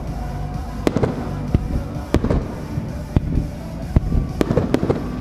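Aerial fireworks shells bursting: a string of sharp bangs about once a second, coming closer together near the end, with music playing underneath.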